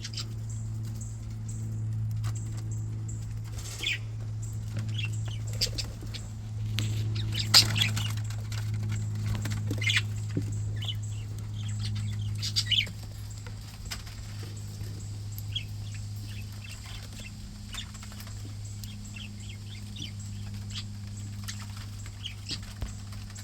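Budgerigars chirping in short, scattered calls, with a few sharp clicks, over a steady low hum.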